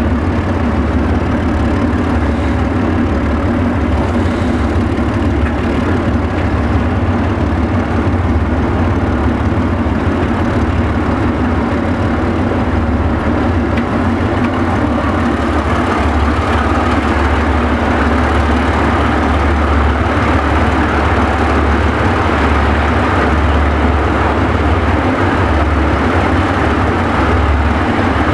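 Alco diesel locomotive of the narrow-gauge White Pass & Yukon Route running steadily close by, a loud low engine drone under the noise of the moving train. The higher rumble and clatter get louder and brighter about halfway through.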